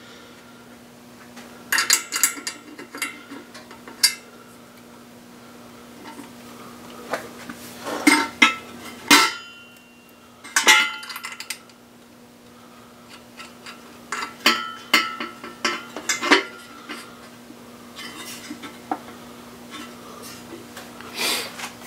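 Small bolts and metal engine parts clinking and tapping together as they are handled and fitted by hand, in several short clusters of sharp clicks, with a steady low hum underneath.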